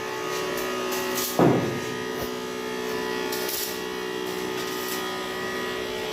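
A steady electrical or machine hum made of several held tones, with one sharp knock about a second and a half in.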